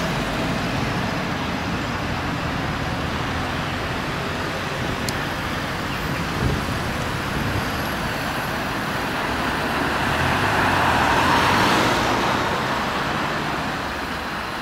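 Road traffic: cars driving by on a busy street, swelling louder as a vehicle passes close about eleven seconds in, with a short knock at about six and a half seconds.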